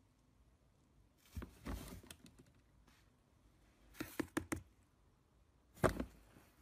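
Plastic swing lid of a trash can knocking and clattering as a cat pushes through it: a few separate knocks, a quick rattle of clicks about four seconds in, and a sharper knock near the end.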